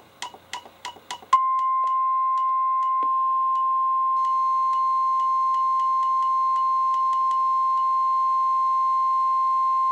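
NOAA Weather Radio 1050 Hz warning alarm tone: one loud, steady single-pitched tone that starts about a second in and holds, the signal that a warning message is about to be broadcast. A quick run of sharp clicks comes just before it, and fainter steady higher tones join about four seconds in.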